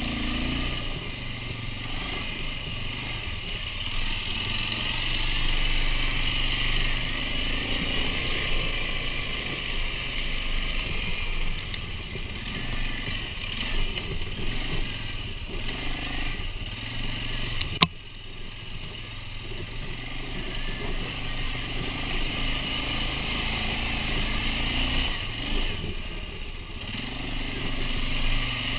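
Quad bike (ATV) engine running steadily while riding, with one sharp click about two-thirds of the way through, after which it briefly drops quieter.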